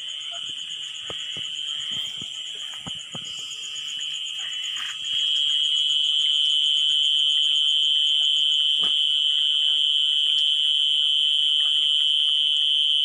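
Insects trilling: a steady shrill chorus that jumps louder about five seconds in, with a faster pulsing trill above it. A few faint knocks come in the first few seconds.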